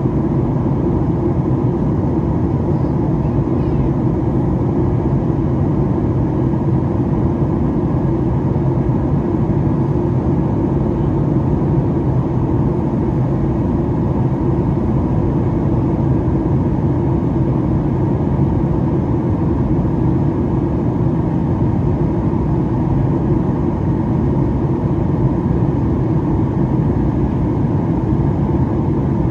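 Steady cabin noise inside a Boeing 737-8 MAX during descent: a constant rush of airflow and the drone of its CFM LEAP-1B engines, with a low, even hum beneath it.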